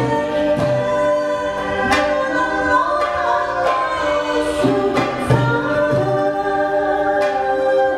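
Live ensemble music: singing voices over sustained instrumental notes, with a few sharp drum strikes.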